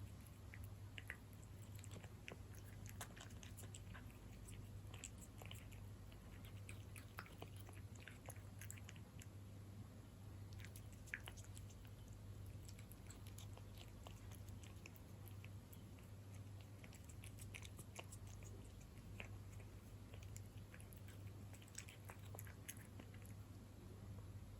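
A cat eating wet food, beef chunks in jelly: faint, irregular wet chewing and smacking clicks, over a steady low hum.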